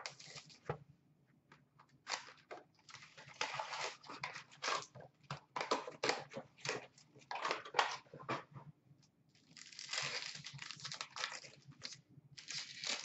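Hockey card packs being torn open and their wrappers crinkled by hand, in irregular bursts of tearing and crinkling with short pauses between them.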